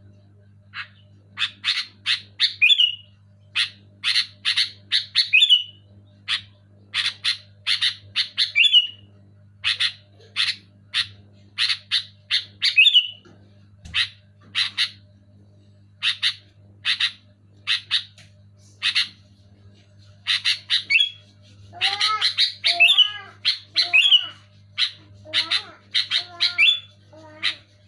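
Sooty-headed bulbul (kutilang) calling: rapid phrases of three to six sharp chirps, most ending in a downward slurred note, repeated every second or so. About 22 seconds in, lower arched notes join the chirps. A steady low hum lies underneath.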